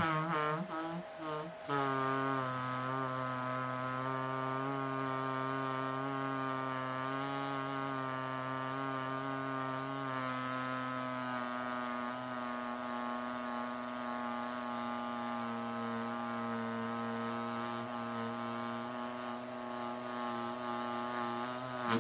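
A small handheld electric vibrator buzzing steadily, starting about two seconds in after a few clicks and knocks, its tone wavering slightly as it runs.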